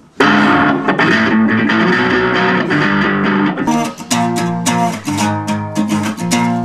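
Guitar playing: loud electric guitar chords at first, then, a little past halfway, an acoustic guitar strummed in a steady rhythm.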